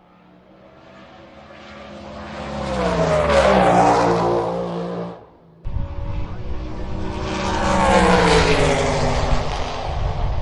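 Two drag racing cars each passing at speed: the engine note grows louder and then drops in pitch as it goes by. The first fades away, and about five and a half seconds in a second pass cuts in abruptly and goes the same way.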